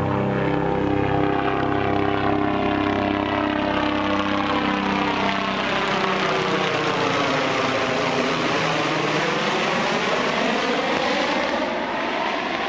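Helicopter flying low overhead, its rotor and engine running loud and steady. The tone sweeps down and back up as it passes over, and it fades a little near the end.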